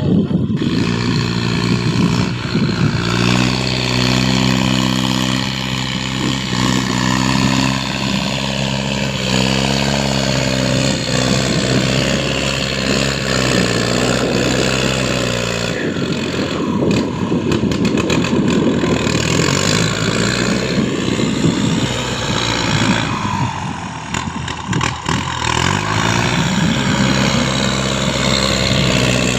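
An engine running steadily, its speed shifting up and down several times.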